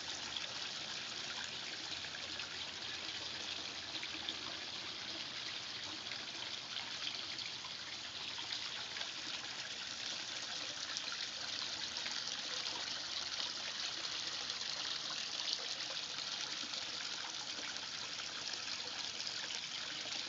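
Rock waterfall spilling into a koi pond: a steady, unbroken splashing trickle of falling water.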